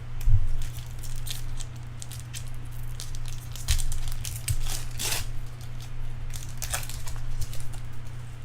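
Bowman Chrome trading-card pack wrappers crinkling and tearing, with cards being handled, in a string of irregular crackly rustles over a steady low hum.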